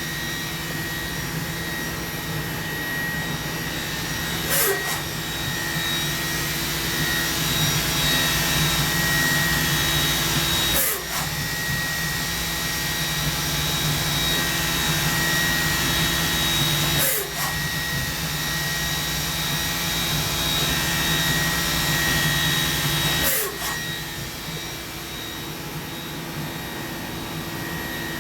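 Mori Seiki NV4000DCG vertical machining center running with a steady whine, broken by a short sharp knock about every six seconds.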